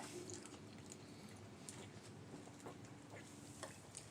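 Quiet eating sounds: faint chewing with scattered soft clicks.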